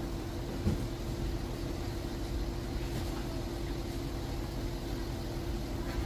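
An engine running steadily at constant speed: a low rumble with a thin, unchanging droning tone over a wash of noise, with one brief knock about a second in.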